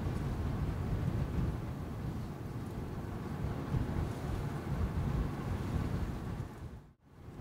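Wind buffeting the microphone, a low gusty rumble with no other clear sound; it cuts out for a moment near the end.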